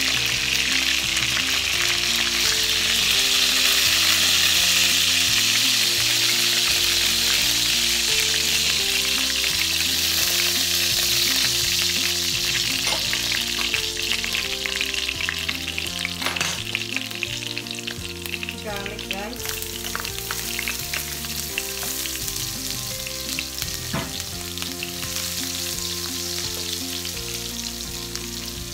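Chicken thighs and pan juices sizzling in a hot nonstick frying pan, with a steady hiss that is loudest in the first half and eases once the chicken is lifted out. A few sharp clicks of tongs and a wooden spoon against the pan come later on.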